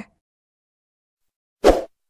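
A single brief transition sound effect, about a fifth of a second long, near the end as the picture slides to the next card; dead silence before it.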